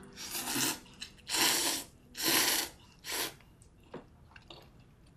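A person slurping ramen noodles with chopsticks: four loud slurps in quick succession, the last one shorter.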